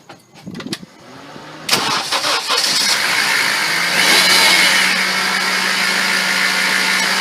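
A few clicks, then a Honda Civic engine is cranked and catches about a second and a half in. It flares up in revs briefly and settles into a steady idle.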